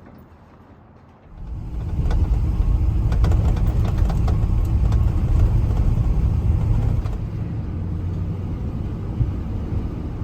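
Squarebody Chevrolet K20 pickup's engine starting about a second in and then running loud, a little quieter after about seven seconds.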